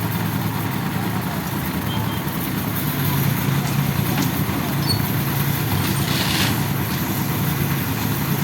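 An engine running steadily with an even low drone, with a short hiss about six seconds in.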